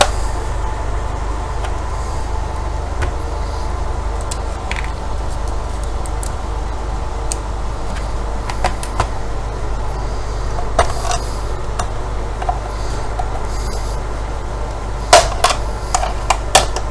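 Plastic clicks and knocks as the router's bottom cover is worked loose from its clips, ending in a run of sharp snaps near the end as it comes free, over a steady low hum.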